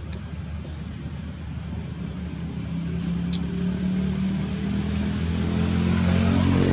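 A motor vehicle's engine running with a steady low hum that grows steadily louder, as if drawing nearer.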